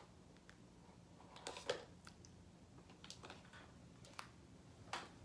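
Quiet room tone with a few faint clicks and rustles of small toiletry items being handled and set down, the clearest about a second and a half in and again near the end.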